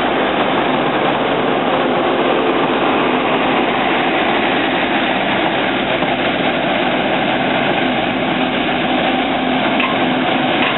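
TRA DR1000 diesel railcar train departing, its diesel engines running with a steady drone as the cars roll past on the track.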